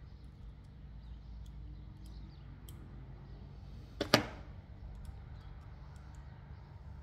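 A single sharp click about four seconds in, over a low steady hum.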